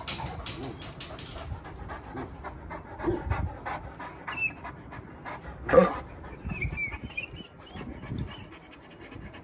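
Large dogs panting rapidly in their kennels, a quick even rhythm of breaths. About six seconds in there is one short, louder vocal sound.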